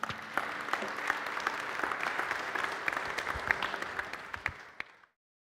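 Congregation applauding: dense clapping that thins out toward the end and cuts off suddenly about five seconds in.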